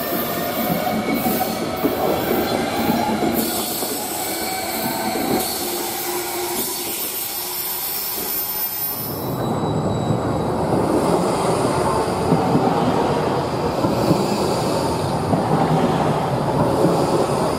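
SBB double-deck S-Bahn train rolling out of the station, its wheels and electric motors whining as the cars pass, then dying away. About nine seconds in, the sound changes to a broad street rumble as a yellow Basel Be 6/10 tram rolls close past.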